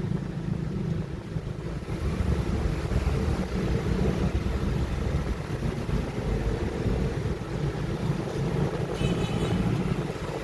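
Steady low rumbling background noise, with a brief, faint higher-pitched sound about nine seconds in.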